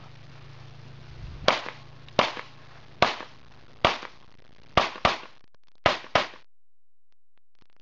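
Eight pistol shots in competition shooting. The first four come singly, a little under a second apart, and the last four come as two quick pairs, each shot followed by a short echo.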